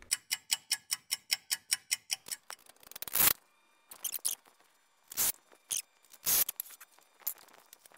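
Cordless impact driver sinking screws into old lumber in short trigger bursts, about three seconds in and twice more near the end, after a quick run of clicks that fades out over the first two seconds.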